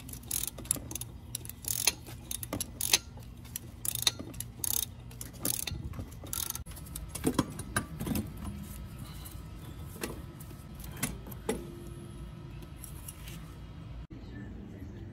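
Rapid, irregular metallic clicking and clinking of hand tools on engine hardware. About seven seconds in there are a few heavier knocks and scrapes as the turbocharger is worked loose and lifted out. After that come only scattered clicks.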